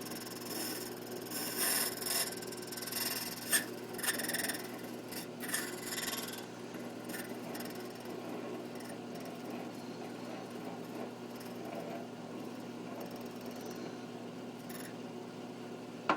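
Curtis key duplicating machine running, its cutting wheel scraping and grinding into a key blank in short strokes over the first six seconds or so, then the motor running steadily with only light rubbing.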